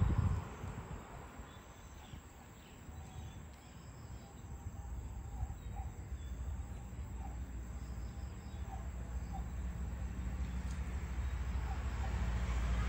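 Outdoor garden ambience: a steady low rumble that grows slowly louder, with faint short chirps now and then.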